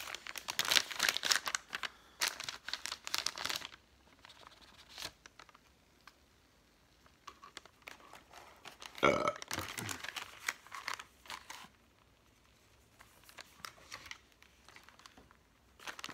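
MRE plastic packaging crinkling and rustling as it is handled: a dense run of crackles for the first few seconds, then more briefly about nine to eleven seconds in. A short vocal noise comes about nine seconds in.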